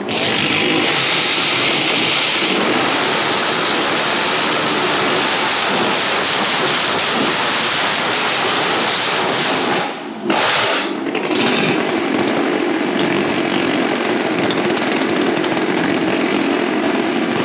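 Motorcycle engine running hard at high revs as it circles the vertical wall of a wall-of-death drum: a loud, steady buzz that dips for a moment about ten seconds in and then picks up again.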